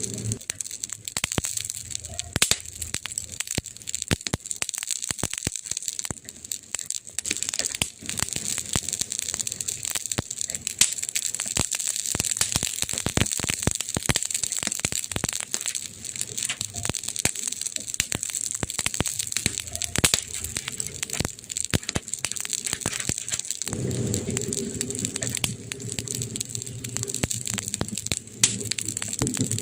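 Campfire burning, crackling with frequent sharp snaps and pops over a steady hiss. About three-quarters of the way in a low rumble joins the crackle.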